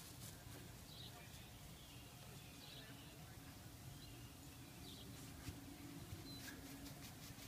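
Near silence: faint backyard ambience with a few faint, short bird chirps.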